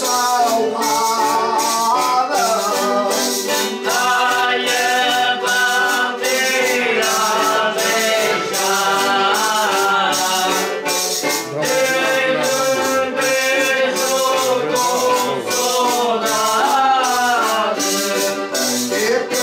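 A group of Azorean foliões singing a Holy Spirit folk song together, with an accordion, a small strummed guitar and a rattling percussion instrument keeping a steady beat at about two strokes a second.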